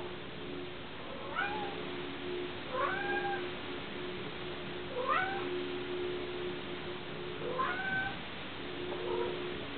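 Maine Coon cat giving five short meows, each rising in pitch, spaced a second and a half to two and a half seconds apart.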